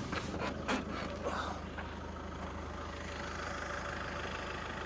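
Van engine idling steadily, with a few light clicks in the first second and a half.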